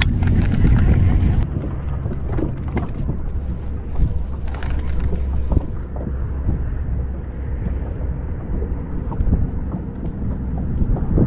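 Wind buffeting the microphone: a steady low rumble, with scattered light clicks and taps over it.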